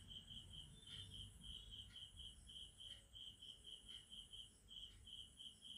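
Near silence with a faint cricket chirping: a high, rapid pulsing in short runs that goes on throughout.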